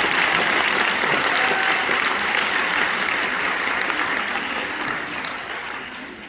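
Audience applauding steadily, the clapping dying away over the last couple of seconds.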